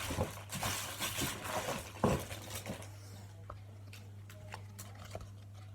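Small plastic and squishy fidget toys being handled and fiddled with: rustling and sharp clicks, busiest in the first three seconds, then a few scattered ticks over a low steady hum.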